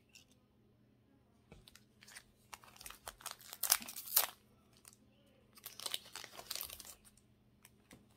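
Foil Pokémon card booster pack wrapper being torn open and crinkled by hand, in two spells of crackling, the louder one about three to four seconds in.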